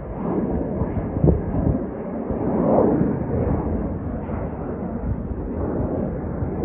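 Jet airliner's engines at takeoff power heard from the ground as it climbs away: a continuous deep rumble that swells and eases irregularly.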